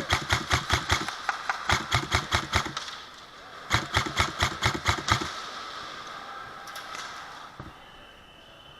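Airsoft gun firing three rapid bursts of sharp clacks, about seven shots a second, the last burst the longest.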